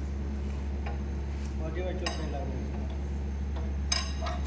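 Light metallic clinks of metal parts being handled, sharper and ringing near the end, over a steady low hum.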